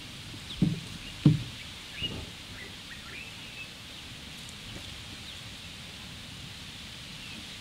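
Outdoor ambience: a steady soft hiss with scattered short bird chirps, broken by three dull low thuds in the first two seconds.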